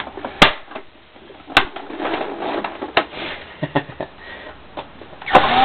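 Plastic parts of a Hoover upright vacuum being handled and shifted: a few sharp clicks and knocks, with light scraping between them and a louder scrape near the end.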